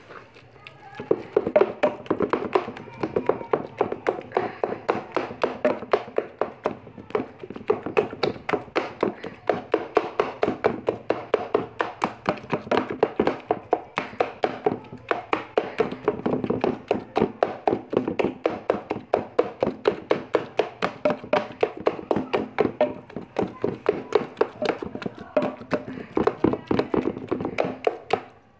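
Mustard greens being mashed in a metal pot: a masher pounds the cooked saag in rapid, even knocks, about three to four a second, starting about a second in.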